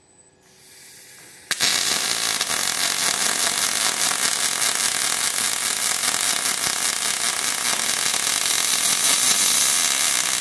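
Robotic MIG/MAG welding arc on steel: after a faint hiss, the arc strikes suddenly about one and a half seconds in and then crackles and sizzles steadily, with spatter, until just after the end.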